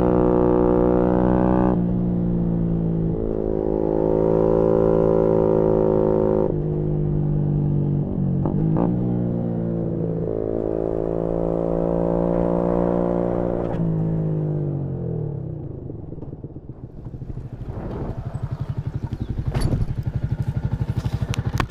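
Yamaha MT-125's single-cylinder four-stroke engine through a GPR aftermarket exhaust, pulling hard through the gears with the pitch climbing and dropping at each shift. After about two-thirds of the way through it rolls off and falls to a quieter, slow lumpy idle.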